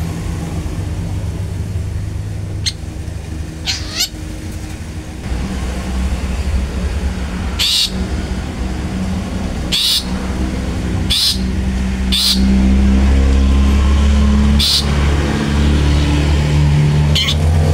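Long-tailed shrike giving short, harsh single calls, about eight spaced one to three seconds apart. Under them a steady low engine hum runs throughout and grows louder past the middle.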